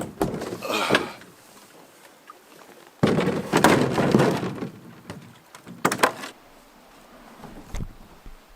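Scuffing footsteps and clattering, thumping portage gear on a steep downhill trail as someone slips, with the loudest crash about three seconds in and a sharp knock about six seconds in.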